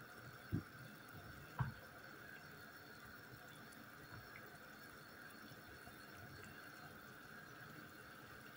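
Water at a rolling boil in a stainless steel pot, a faint steady bubbling. Two short soft thuds come about half a second and a second and a half in.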